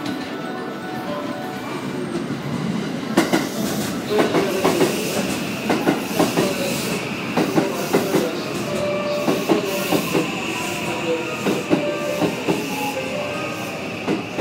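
JR West 323 series electric train pulling in to stop at the platform, its wheels clicking in quick irregular runs over the rail joints from about three seconds in. A steady high whine joins about four seconds in and holds as the cars slide past.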